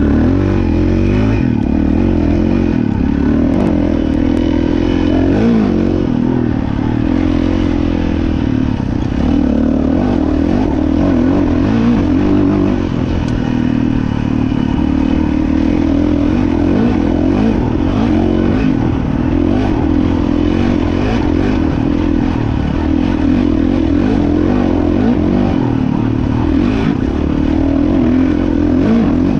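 Dirt bike engine running under throttle while being ridden, its pitch rising and falling continuously with the revs.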